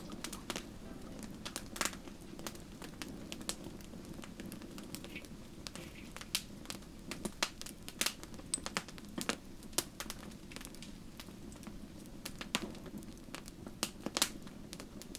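Wood campfire crackling, with irregular sharp pops and snaps over a low steady rush of flame.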